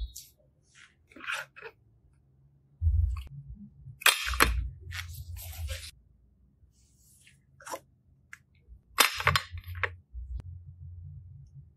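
Hard plastic containers being handled and set down: a run of sharp plastic clicks and knocks with dull thumps, the loudest about four seconds in and again about nine seconds in.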